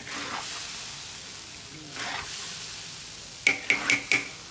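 Food sizzling in a wok as it is stir-fried, with sweeping strokes of the spatula. Near the end come four quick, sharp metal clinks with a short ring, a utensil striking the wok.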